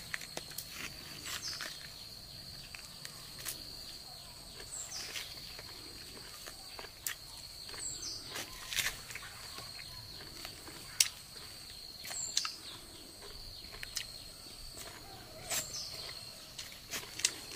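A knife cutting and prying bulbs out of a halved jackfruit, making scattered soft clicks and crunches. Behind it runs a steady high insect drone, and a bird repeats a short falling call about every three to four seconds.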